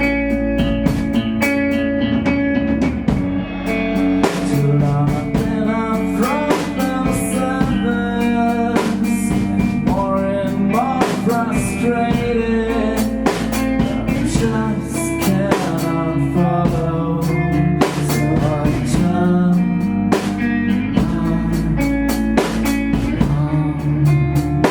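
A live band playing: guitar notes, some bending in pitch, over a drum kit keeping a steady beat.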